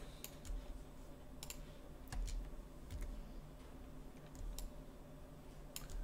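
Faint, irregular clicks of a computer mouse and keyboard keys being pressed, a few short clicks spread across the seconds, over a low steady hum.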